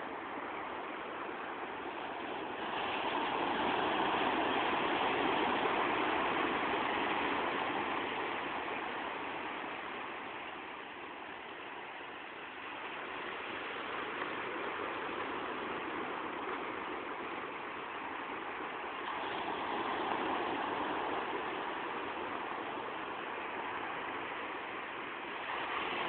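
Ocean surf breaking and washing up the beach, its rush swelling and fading: a big wave swells about three seconds in, another about nineteen seconds in, and a third is building near the end.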